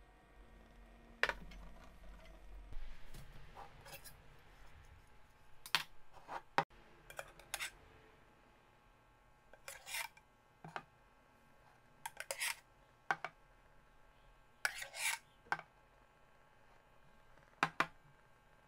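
A metal spoon scraping and clinking against a stainless steel milk pitcher while scooping milk foam, in scattered short taps and scrapes, a few of them about half a second long.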